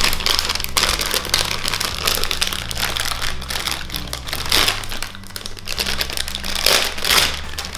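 Foil blind-bag packets being torn open and crinkled by hand: a continuous crackling rustle, with louder bursts about halfway through and near the end.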